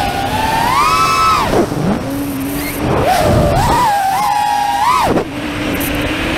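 FPV quadcopter's brushless motors and propellers whining, the pitch swinging with the throttle: rising about a second in, dropping low around two seconds, surging high again from about three to five seconds, then falling back.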